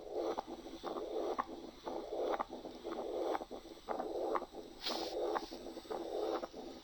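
Heart sounds from a stethoscope recording of combined mitral stenosis and mitral regurgitation, repeating about once a second. The murmurs of the two lesions run almost into each other, so the sound is nearly continuous, but a short gap separates the two murmurs.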